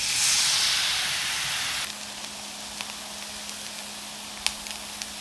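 Pancake batter sizzling loudly as it is ladled into hot oil in a frying pan. About two seconds in it drops to a quieter, steady sizzle of the egg pancake frying, with a low steady hum and a few small sharp ticks, the clearest one near the end.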